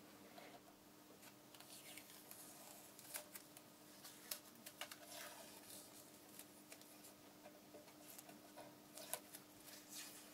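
Near-silent room with a faint steady hum, under faint rustling and a handful of small sharp clicks as hands pull a crumpled yellow sheet out from under a bar clamp's wooden block.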